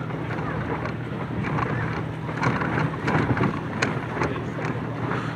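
Steady noise of a small boat under way on the water, with wind on the microphone and a few light knocks.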